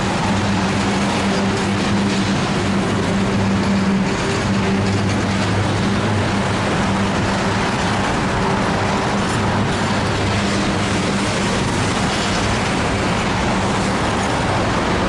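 Freight train of tank cars rolling past: a steady rumble of wheels on the rails, with a low hum that fades in and out.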